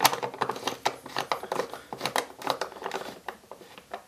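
3/8-inch ratchet on an extension clicking in quick, uneven runs of sharp ticks as it drives in a long bolt.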